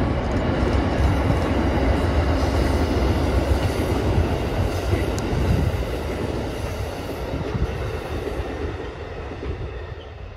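Amtrak GE P42DC diesel locomotive and its passenger cars crossing a steel girder bridge: the engine running and the wheels rumbling over the span, fading through the second half as the train moves off.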